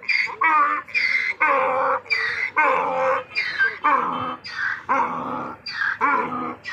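Donkey braying: a long run of harsh hee-haw calls, about two a second.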